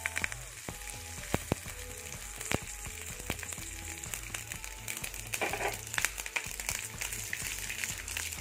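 Tempering of chana dal, fenugreek and mustard seeds with fresh curry leaves sizzling in hot oil in a steel pan, with scattered small pops.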